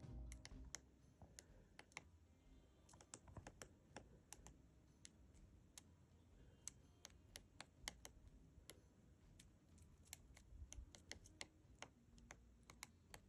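Woodpecker pecking at a tree: faint, sharp, irregular taps, a few a second.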